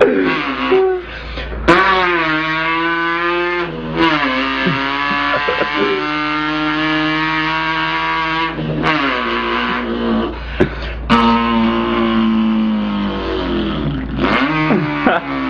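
A man's mouth imitation of an import car's engine, a buzzing pitched drone that revs up, holds, then drops in pitch as if shifting gears, several times over with short breaks between.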